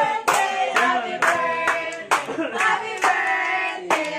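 Hands clapping in time, about two claps a second, along with a sung birthday song.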